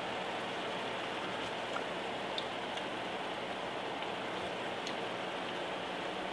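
Ground beef, potatoes and sauce sizzling steadily in a cast-iron skillet: an even hiss with a few faint pops.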